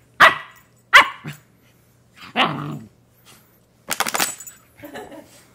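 Bernese mountain dog puppy barking several times at a plastic water bottle. About four seconds in, a quick run of crinkles from the bottle.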